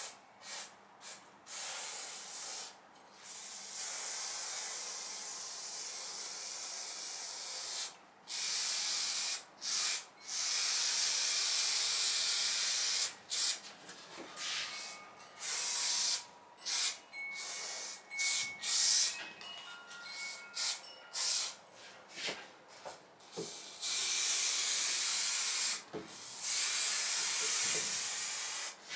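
Aerosol can of spray contact adhesive spraying glue in a run of hisses of varying length, from short puffs to sprays of a few seconds, with brief pauses between.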